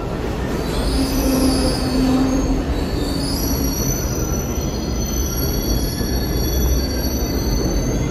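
New York City Subway A train rolling slowly through the station with its wheels squealing on the rails. Several high-pitched squeal tones start about a second in and hold over a steady low rumble.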